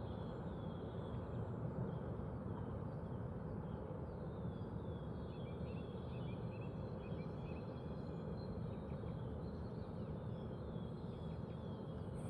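Birds singing: many faint, short high chirps and trills over a steady low background rumble.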